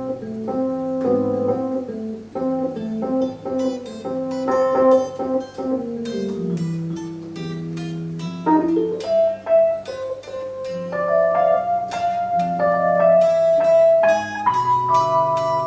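Electric guitar and a Yamaha electronic keyboard playing an instrumental passage together with no vocals: a melody line of single sustained notes over chordal accompaniment.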